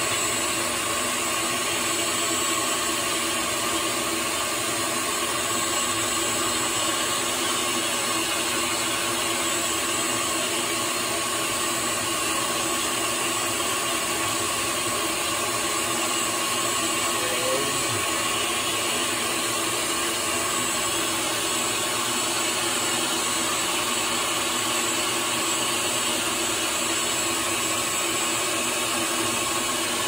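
Steady machine whir with several constant tones in it, running evenly without a break.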